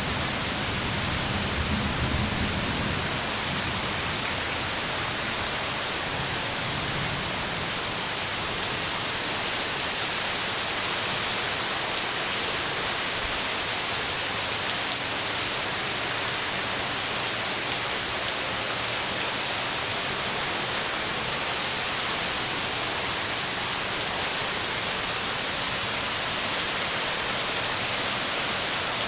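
Steady, heavy rainfall, with a low rumble of thunder dying away in the first few seconds.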